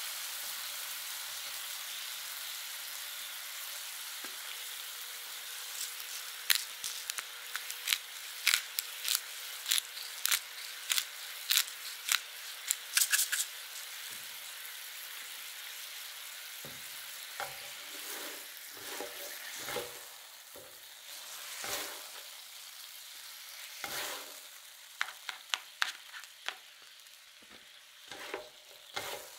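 Thin-sliced beef sizzling in sauce on a nonstick griddle, a steady hiss that slowly dies down. About six seconds in, a run of sharp pops and crackles sets in. In the second half, spatulas tap and scrape on the griddle surface as the meat is turned.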